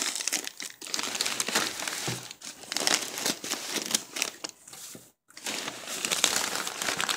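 Plastic sleeve and paper packing crinkling and rustling as hands pull at the wrapping around a boxed plant, in a dense, irregular crackle that breaks off completely for a moment about five seconds in.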